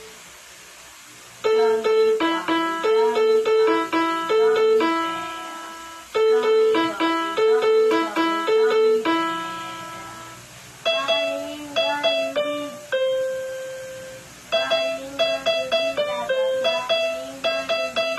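Electronic keyboard played with a piano sound: a simple melody picked out in four short phrases of struck notes, most ending on a longer held note, after a brief pause at the start.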